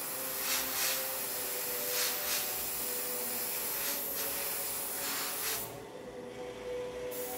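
Gravity-feed airbrush spraying thinned lacquer paint: a steady hiss of air and paint with a few brief louder puffs as the trigger is worked. It stops for about a second and a half near the end, then starts again.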